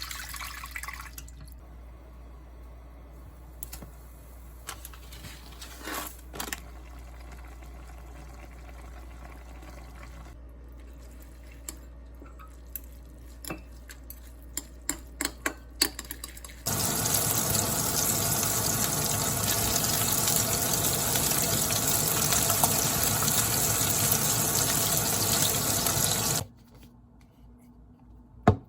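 Scattered light clicks and knocks, then a tap turned on, water running into a sink for about ten seconds and shut off abruptly, followed by a couple of knocks.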